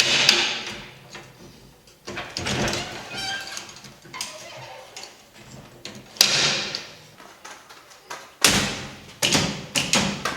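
Irregular series of sharp knocks and clatters, about six, each ringing briefly as it fades, from the home-built juggling machine's frame being worked at its raised 5-ball height.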